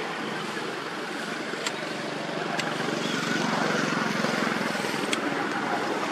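Steady background noise with a low motor hum that swells about three seconds in, and a few short sharp clicks.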